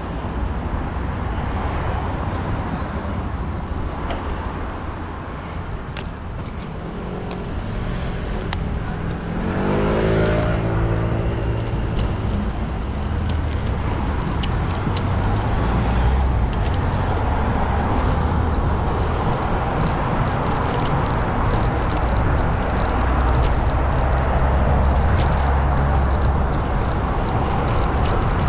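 City road traffic: a steady low rumble of passing cars. About ten seconds in, a vehicle accelerates close by and its engine note rises.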